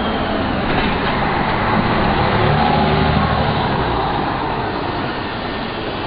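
City street traffic noise with a vehicle running close by. Its low hum swells in the middle, then eases off.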